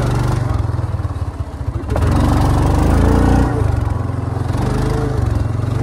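ATV engine running under throttle, revving up about two seconds in and easing back a second and a half later.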